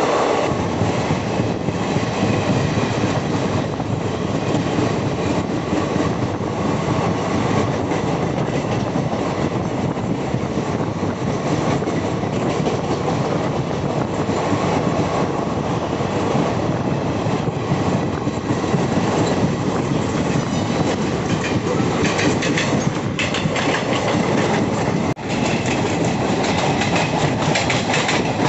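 Passenger coaches of an Indian Railways express train running past close by, the wheels clattering steadily over the rail joints. The sound dips for a moment near the end.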